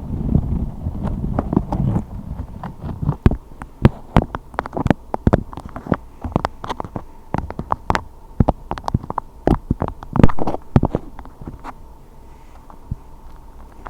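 A low rumble for the first two seconds, then a quick, irregular run of sharp taps or clicks, several a second, thinning out near the end.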